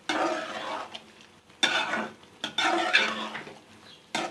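Spoon stirring a thick curry of potatoes, purslane and chana dal in a cooking pot: three long scraping strokes through the food, with a short knock near the end.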